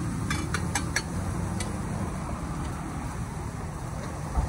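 A few quick metal clinks, a steel ladle against a large frying pan, about half a second to a second in, over a steady low rumble; a single thump near the end.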